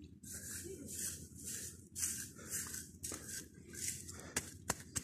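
Small hand trowel scraping soil back over a hole in grassy ground, in short scratchy strokes about two a second, followed by a few sharp clicks near the end.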